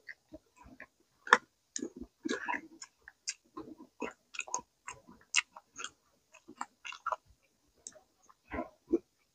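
Close-up mouth sounds of a person chewing raw vegetable and seafood salad: irregular short crunches, smacks and wet clicks, a few a second, with brief quiet gaps.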